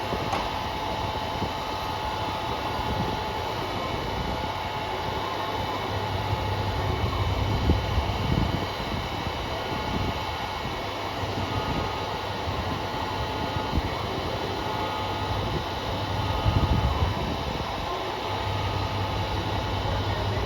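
JR Kyushu KiHa 200 diesel railcar running steadily at a standstill, a low rumble that swells now and then under a thin steady tone. The car is making the abnormal noise that came from KiHa 200-1551 throughout, a fault that took the unit out of service the next day.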